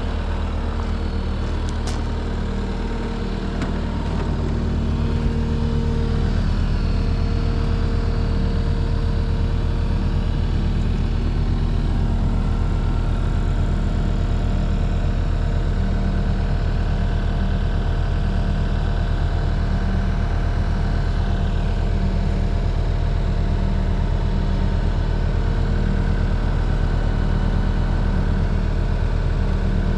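Diesel engine of a 2016 Case TV380 tracked skid steer running steadily, a little louder from about five seconds in.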